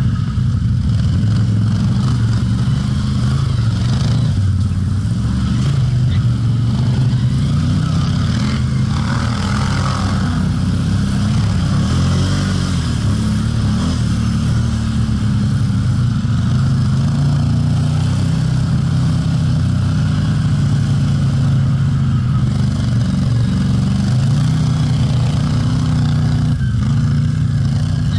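Can-Am ATV engine heard from on board, running steadily under way, its pitch rising and falling a little with the throttle.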